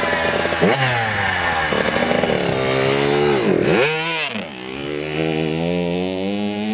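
Dirt bike engine revving up and easing off. Its pitch jumps just under a second in and falls away, then drops sharply and climbs back again about halfway through before settling.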